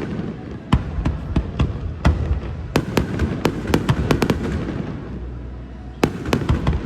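Fireworks display: a rapid run of sharp bangs and cracks, easing off about halfway through, then a fresh run of bangs starting near the end.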